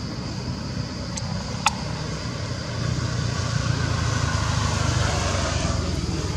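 A motor vehicle running past on the road, its low engine rumble growing louder about three seconds in. A single sharp click sounds a little before that.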